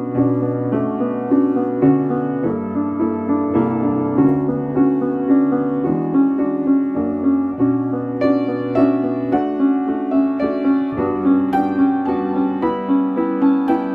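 Solo piano playing a slow, sorrowful piece in B minor: soft repeated chords over long held bass notes, with a higher melody line coming in about halfway through.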